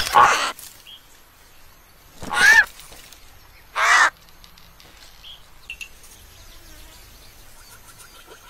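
A bird squawks twice, two short raspy calls about a second and a half apart. Faint insect-like chirping follows near the end.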